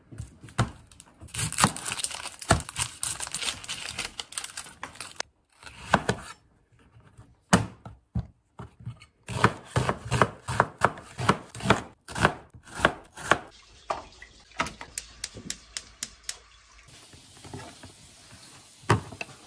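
Chef's knife chopping an onion on a cutting board: scattered sharp knife strikes against the board, then a quick even run of chops, about four or five a second, a little after the middle as the onion is diced.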